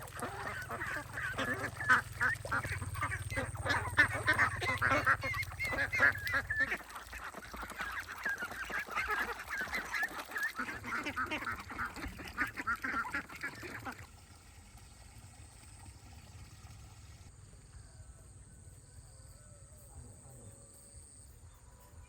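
A flock of farm birds calling together, many overlapping calls at once for about fourteen seconds, then stopping suddenly to a faint background.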